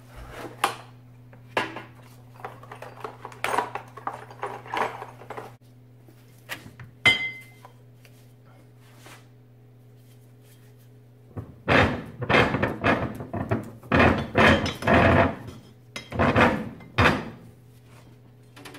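Clicks and light clatter of a plastic drill case's latches being opened and the tools inside being handled. Then, past the middle, a dense run of loud metal clanks and knocks as a square steel tube is set into a heavy cast-iron bench vise and the vise is cranked shut. A steady low hum sits underneath.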